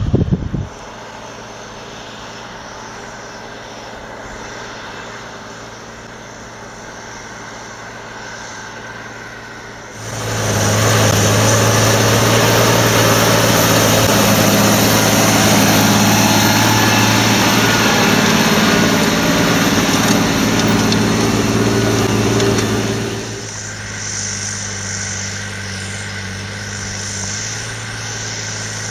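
John Deere 8420's six-cylinder diesel engine working hard, pulling a Horsch Tiger 3MT cultivator at full depth, a steady drone throughout. From about ten seconds in to about twenty-three seconds in, as the tractor passes close, it is much louder and fuller, with a rush of noise over the engine note.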